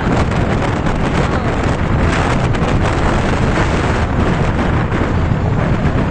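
Wind rushing and buffeting on the microphone of a moving motorcycle, with the ride's engine and road noise beneath it, loud and steady throughout.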